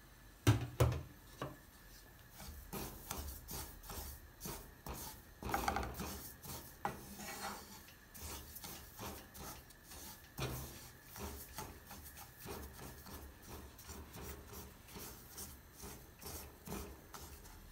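Wooden spatula stirring and scraping sesame seeds around a dry nonstick frying pan as they are toasted: a steady run of short raspy strokes. One sharp knock about half a second in.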